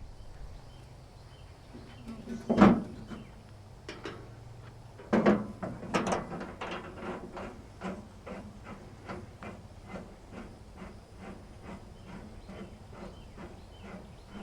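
Handling of a portable bandsaw mill's metal blade housing: two loud knocks a couple of seconds apart, then an even run of light clicks, about two a second.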